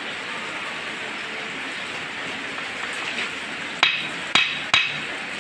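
Steady hiss of a gas cutting torch working on steel. Near the end come three sharp hammer blows on metal, about half a second apart.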